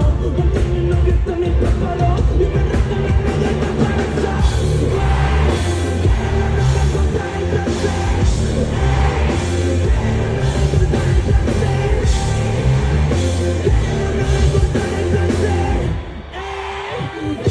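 Live rap-rock concert music: a heavy band with drums and bass under sung and shouted vocals. The bass and drums drop out for about a second near the end, then come back in.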